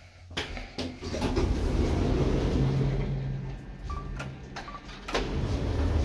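Kone Monospace elevator's automatic sliding doors running, with a low motor hum and clattering. Two short beeps come about four seconds in as a floor button is pressed, and the door noise picks up again just after.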